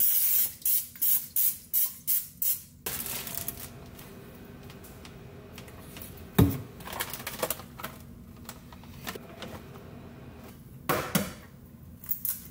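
Cooking spray hissing from an aerosol can into a frying pan in a rapid series of short bursts, followed by a single sharp knock about six seconds in and a few quick cracking clicks near the end as an egg is cracked over the pan.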